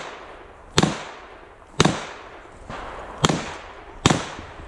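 Shots from a Smith & Wesson Model 325 Thunder Ranch .45 ACP revolver, fired four times roughly a second apart, each bang trailing off in a short echo.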